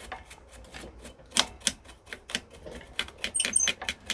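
Brush clearing swarf off a freshly cut worm thread on a small lathe: a rapid, irregular run of light clicks and ticks, with a few brief high squeaks about three seconds in.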